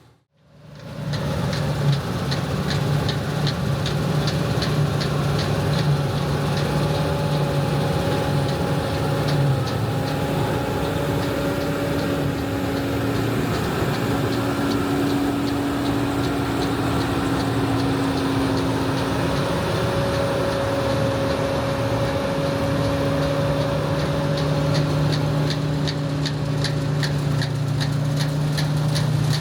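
Heavy diesel harvest machinery running steadily after it fades in, with a low engine hum that shifts in pitch a few times and a fast, even ticking over it.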